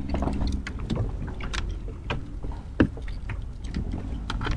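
Small fishing boat on the water, with a low steady rumble of water and wind around the hull. Scattered light clicks and knocks come from rod and tackle handling as a fish is landed, with one sharp knock a little before three seconds in.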